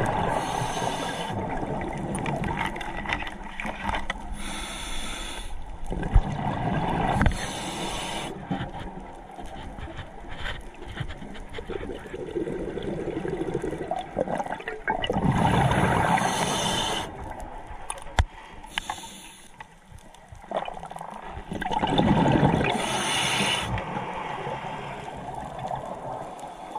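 Scuba regulator breathing underwater: rushing surges of exhaled bubbles recur every several seconds, with quieter water noise between them.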